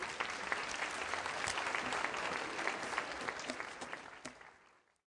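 Audience applauding, many hands clapping at once; the applause dies away near the end and drops to silence.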